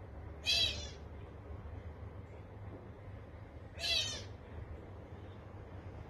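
Indian grey hornbill giving two short, high calls about three seconds apart, over a steady low hum.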